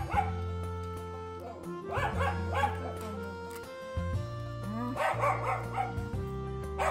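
Background music with long held notes, over a young dog's high whining yips that come in two short runs, about two seconds in and again about five seconds in: a dog begging for food.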